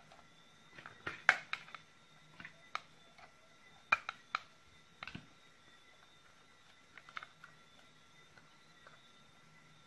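Irregular clicks and taps of hard plastic and metal as the opened Makita 18 V battery pack's cell holder and terminal board are handled and fitted together, loudest a little after one second and around four seconds, over a faint steady hum.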